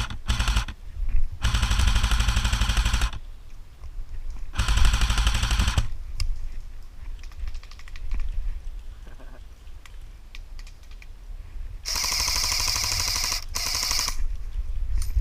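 Airsoft guns firing on full auto: three long bursts of rapid, evenly spaced shots, each lasting one to two seconds, with a few single shots between them.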